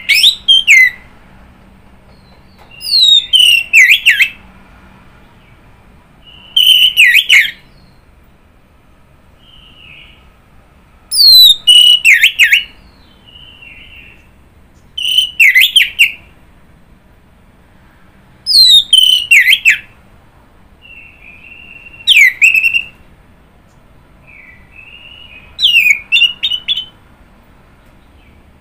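Orange-headed thrush (anis merah) singing: loud phrases of about a second, each of falling whistles and quick trills, repeated every three to four seconds, with softer short notes in between.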